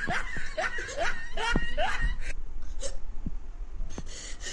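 A woman's short, breathy gasping whimpers, several in quick succession, then quieter after about two seconds; her mouth is burning from hot red chilli.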